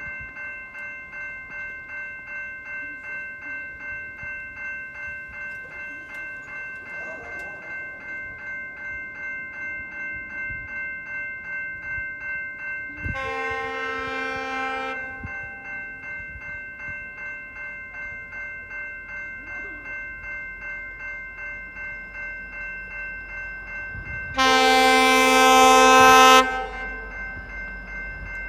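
Level-crossing warning bells ringing steadily at a quick, even beat while a GO Transit MP40 diesel locomotive approaches. Its horn sounds twice, a chord of about two seconds near the middle and a louder one of about two seconds near the end. A low locomotive rumble builds over the last few seconds.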